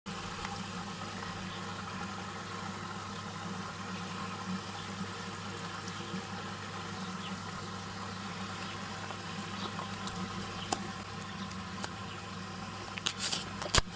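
Steady motor hum under swirling water from a whirlpool tank. Near the end comes a short run of sharp crackles as the plastic packet of toys is torn open.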